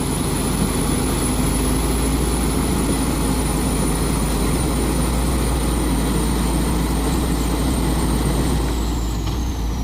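Heavily loaded Hino 500 FM 260 Ti truck's diesel engine running hard and steadily under load as it pulls through deep mud, with a thin high whistle that slowly falls in pitch near the end.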